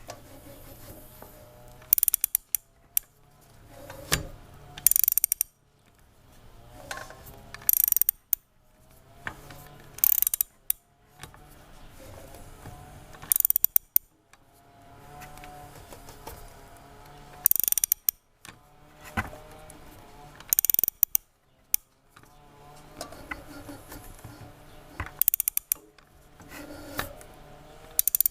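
A ratchet wrench turning the crankshaft of a BMW R1150R boxer twin over by hand, the way one checks for a noise at the crankshaft pulley. Slow pulls carry a faint, wavering rubbing tone, and each pull ends in a quick burst of loud ratchet clicks, repeating about every three to four seconds.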